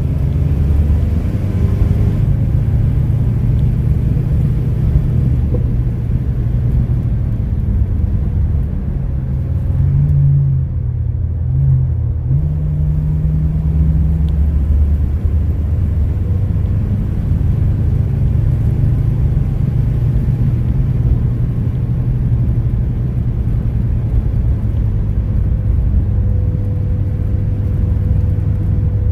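Car engine and road noise heard from inside the cab while cruising and gradually picking up speed: a steady low rumble. The engine note dips and picks up again about ten seconds in.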